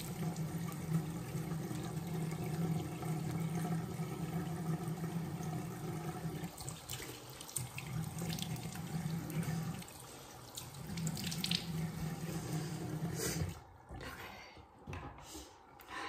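Bathroom sink tap running steadily, then shut off about thirteen seconds in, followed by a few small clicks and knocks.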